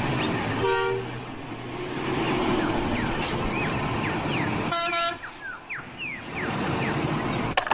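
Diesel refuse truck engine running as the truck manoeuvres, with two short horn toots: one about a second in and a longer, higher one about five seconds in. Birds chirp briefly in the middle.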